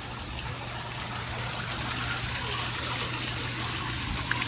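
Steady hiss of running or falling water, with a steady low hum underneath.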